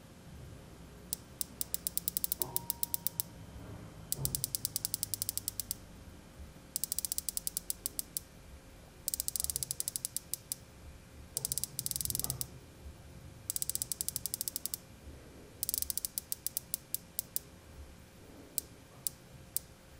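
The unidirectional rotating bezel of a Rolex Submariner 124060 turned by hand, its ratchet clicking in quick runs of clicks with short pauses between turns. It ends with a few single clicks.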